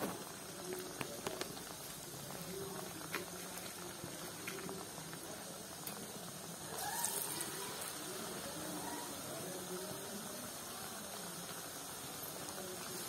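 Refined oil in an iron kadhai sizzling steadily as a maida-batter-coated vegetable cutlet deep-fries. The sizzling flares louder about seven seconds in, as a second cutlet goes into the oil.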